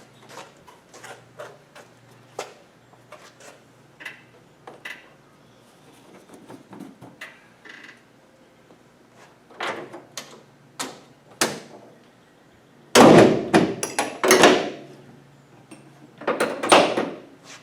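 Scattered light clicks and knocks of things being handled, then a run of loud bangs and clatter about thirteen seconds in and again near the end.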